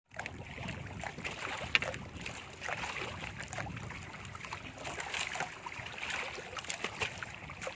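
Paddle strokes and water splashing and dripping around a small outrigger canoe, with irregular small splashes and crackles and one sharp knock a little under two seconds in.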